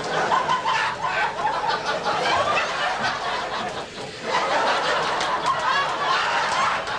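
Crowd laughter from a laugh track, in waves that die down briefly about four seconds in and then swell again.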